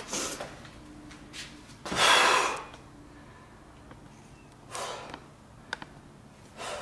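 A man's loud, breathy sigh of exhaustion about two seconds in, then a softer breath near five seconds, after hard wedging of stiff clay.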